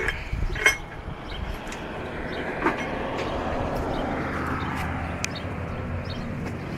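A passing vehicle: a rumbling noise that swells and then fades, with a few sharp clicks.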